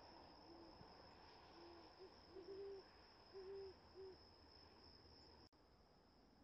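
Great horned owl hooting: a run of about six low, deep hoots, some paired, between about half a second and four seconds in. A steady cricket chorus sings behind it.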